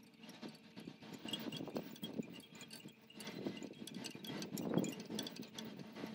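Soft, irregular knocks and rustling from a person shifting her hands, knees and feet on a yoga mat as she moves from child's pose into downward dog, with faint high tinkling behind.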